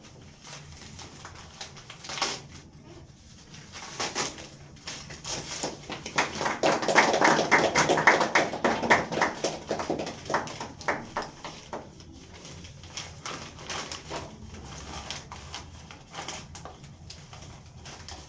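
Gift-wrapping paper being crinkled and torn open by hand, with scattered rustles and a dense stretch of crackling tearing in the middle that lasts about four seconds.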